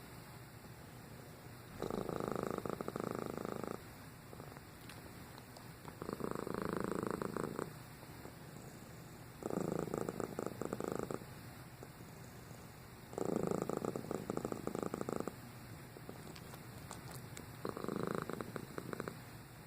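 Domestic cat purring steadily. The purr swells into a louder stretch of about two seconds roughly every four seconds, alternating with quieter purring, five loud stretches in all.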